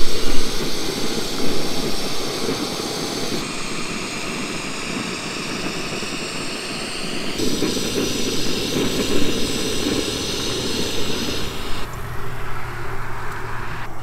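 Canister gas stove burner running with a steady roaring hiss as it heats water to the boil. The tone of the hiss shifts abruptly three times, about every four seconds.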